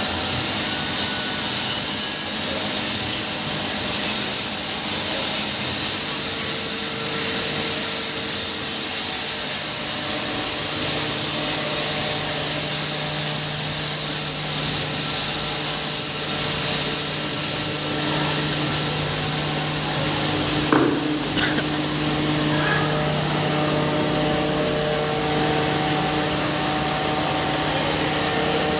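Double-chamber pulverizer (hammer mill) running steadily, a continuous hissing grind with a low hum that grows stronger about a third of the way in. A single sharp knock sounds about two-thirds in.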